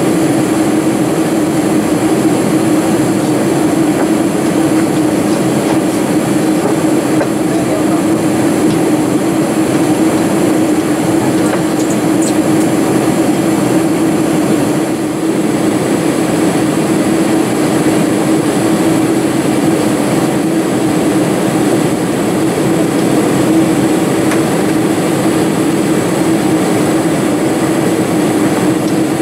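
Steady cabin noise of a Boeing 747-400 from a window seat over the wing on descent: engine drone with a steady low hum over rushing airflow.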